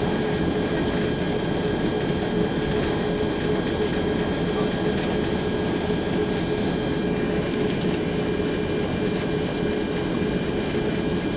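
Steady cabin noise inside an Airbus A340-600 airliner: the even rumble of the engines and air system, with a steady mid-pitched hum running through it and fainter high whines above.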